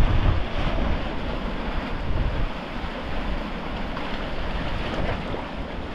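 Sea waves washing and breaking against rocks, with wind buffeting the microphone as a heavy low rumble over the first two seconds or so, then easing.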